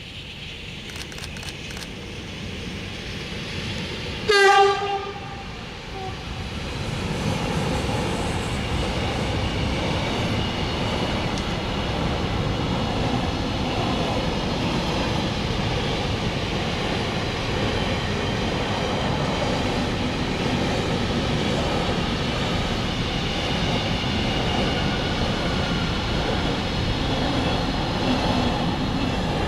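Freight train approaching, its locomotive giving one short horn blast about four seconds in, then the wagons rolling past steadily and loudly for the rest of the time.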